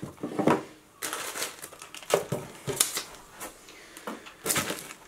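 Clear plastic bag crinkling and rustling as it is handled, in irregular bursts.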